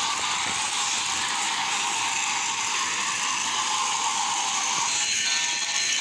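Int'l Express battery-powered toy train running on its plastic track: a steady mechanical whirr and clatter from its small motor, gears and wheels. About five seconds in, a tinny electronic tune from the train's sound unit starts over it.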